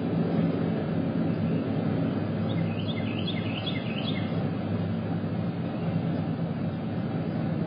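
Steady low drone of distant engine noise, with a short quick series of high bird chirps about two and a half seconds in, lasting under two seconds.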